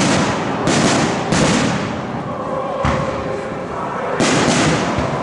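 Aerial firework shells bursting in a display: about five loud bangs at uneven intervals, one of them a deeper thump near the middle, each followed by a long echoing tail.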